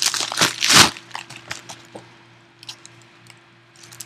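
Packaging of a sealed trading-card box being torn and crinkled open by hand. There is a dense crackling burst in the first second, loudest just before one second in, then scattered crinkles and clicks.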